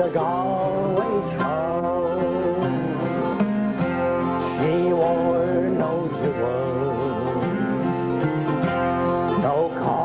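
A man singing a country-folk song to strummed acoustic guitars and an electric bass.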